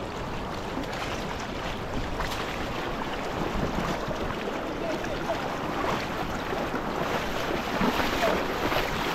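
Steady rush and splash of flowing water.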